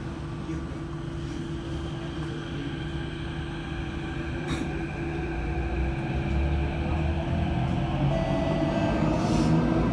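Metro train pulling away from a station: a steady rumble and hum growing louder, with a motor whine rising in pitch in the second half as it picks up speed.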